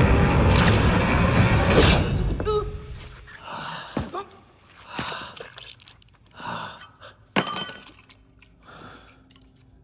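Film sound: a loud swell of dramatic score cuts off about two seconds in, leaving a man's ragged gasping breaths, one every second or so, with a single sharp crack about seven seconds in.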